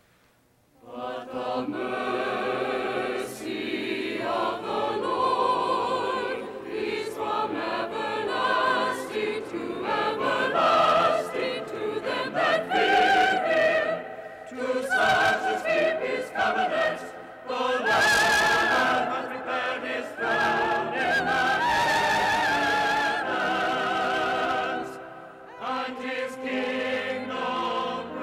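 Large mixed choir singing with an orchestra, starting about a second in after near silence. Many voices hold long notes with vibrato, swelling louder and softer phrase by phrase, with a brief dip near the end.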